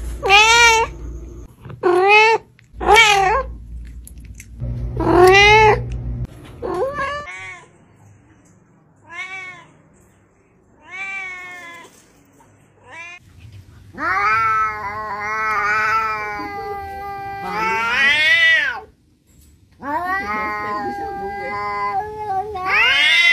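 Domestic cat meowing: a series of short rising-and-falling meows, then softer ones, then two long drawn-out yowls lasting several seconds each.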